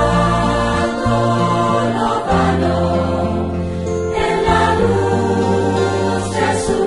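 Spanish-language Christian song sung by a choir over instrumental accompaniment, with sustained chords and a low bass line that changes every second or two.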